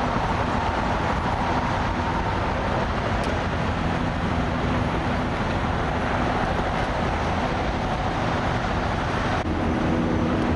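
Steady roadway traffic noise with an idling engine's low, even hum beneath it; the sound shifts abruptly about nine and a half seconds in.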